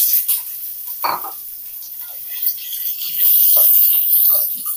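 Chopped onion and capsicum sizzling in a little hot oil in a frying pan as they are sautéed on a high flame. There is a brief knock about a second in, and the sizzle swells again near the end.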